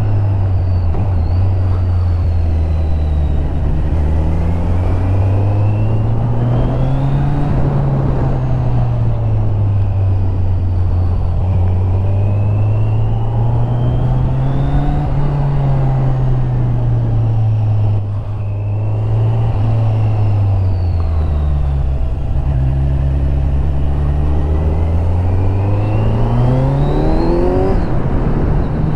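Kawasaki Z900's inline-four engine on its stock exhaust, heard on board as the bike rides: the engine note climbs and falls several times as the rider accelerates and backs off, with a brief drop in loudness about two-thirds through and a steep rise in revs near the end. Wind rushing past runs underneath.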